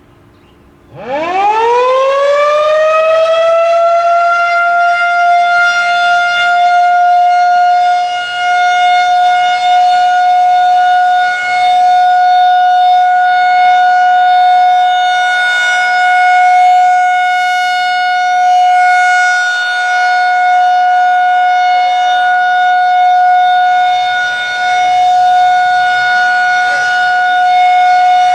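Federal Signal 2001-130 electro-mechanical warning siren starting its monthly test: about a second in it winds up quickly from nothing, then holds a loud steady tone with small swells and dips in loudness.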